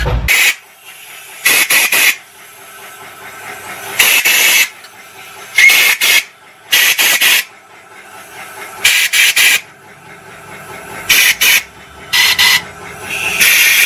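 About nine short, loud bursts of hissing, each lasting around half a second, come every second or two over a faint steady background.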